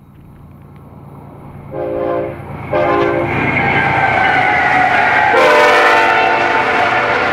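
BNSF freight locomotive horn sounding two short blasts and then a long one as an intermodal train approaches. Under the horn, the diesel engines and wheels rumble and grow steadily louder as the train nears.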